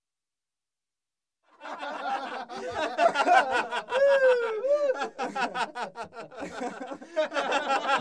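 A group of boys laughing together: many overlapping giggles and chuckles. It starts suddenly about a second and a half in, after silence.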